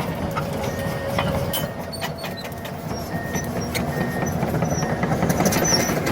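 Heavy demolition machine's diesel engine running under load, with sharp cracks and knocks of wood and debris breaking as a house is torn down.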